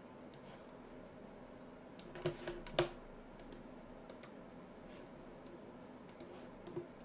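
Clicks of a computer mouse and keyboard: a quick cluster of about four about two seconds in, then a few fainter single clicks, over a faint steady room hum.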